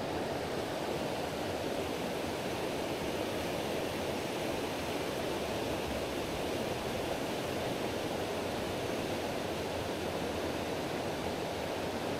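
Steady rush of river water running over a rocky riffle: an even, unbroken wash.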